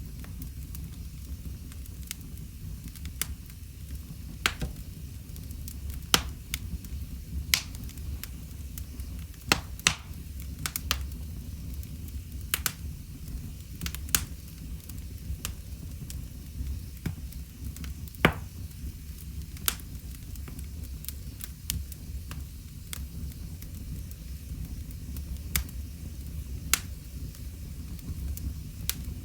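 Wood fire in a fireplace crackling, with sharp irregular pops over a steady low rumble of the flames.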